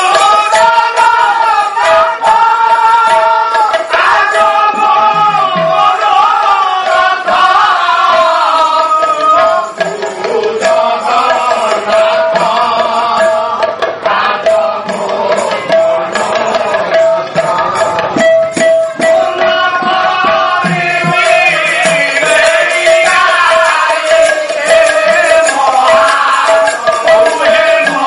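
Odia pala music: voices singing over a hand-played drum beat and large hand cymbals, with a steady high ringing tone underneath.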